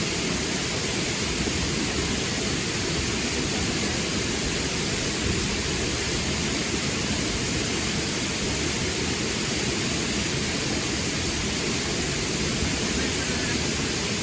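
River water rushing: a steady, loud flowing noise.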